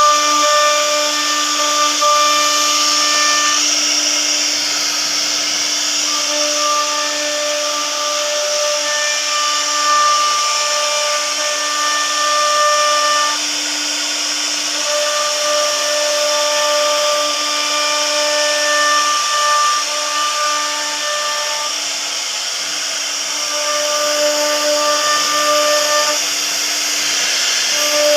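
CNC router's spindle running with a steady high whine while its bit cuts wood, the upper overtones breaking off and returning every few seconds as the cut goes on.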